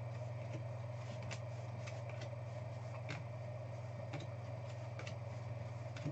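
Basketball trading cards being flipped through by hand, giving faint short ticks every second or so over a steady low hum.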